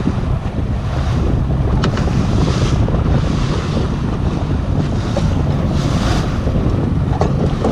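Steady wind buffeting the microphone aboard a boat at sea: a loud, even low rumble, with the wash of water beneath.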